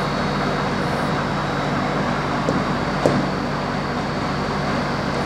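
Steady background room noise with a low hum, and a single light click about three seconds in.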